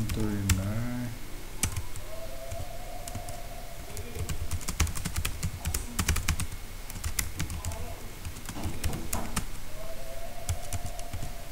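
Typing on a computer keyboard: a run of irregular keystroke clicks as a line of text is entered.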